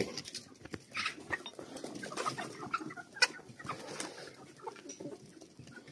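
A flock of chickens clucking in scattered short calls, with one sharp click about three seconds in.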